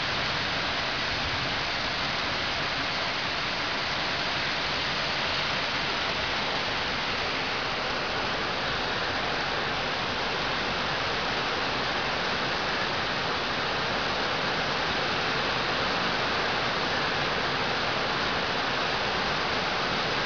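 Heavy rain pouring steadily onto tree foliage, an even, unbroken hiss.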